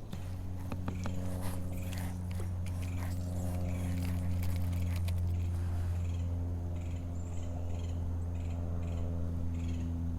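Steady low motor hum that holds one pitch throughout, with a few faint light clicks over it.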